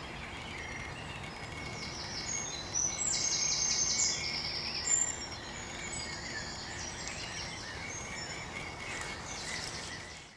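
Wild birds singing over a steady outdoor background hiss, with a loud, rapid high trill about three to four seconds in and more chirps and trills through the rest. The sound cuts off abruptly at the end.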